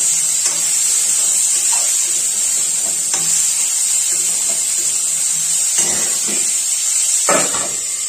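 Cauliflower florets frying in hot oil in an aluminium kadhai: a steady sizzling hiss, with a few metal scrapes and clinks against the pan, the loudest near the end.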